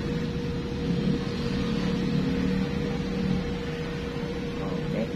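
Steady low rumble with a constant mid-pitched hum running through it, unchanging throughout.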